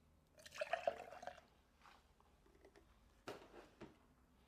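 Boiling water poured briefly from a small kettle, lasting about a second, followed a little past three seconds in by two short knocks.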